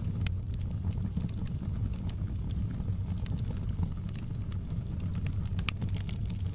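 Fireplace fire burning: a steady low rumble with scattered crackles and pops, a sharper pop just after the start and another near the end.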